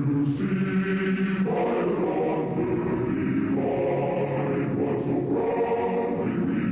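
Slow choral music: voices singing long held chords that change every second or two.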